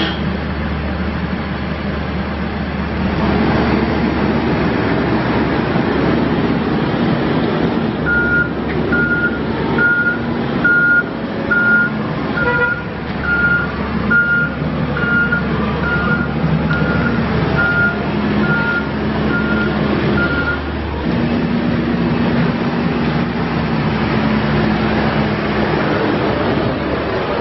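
Case 580N backhoe loader's diesel engine running under load, picking up revs about three seconds in. In the middle its reverse alarm sounds a steady series of high beeps, about one a second, for some twelve seconds while the machine backs up.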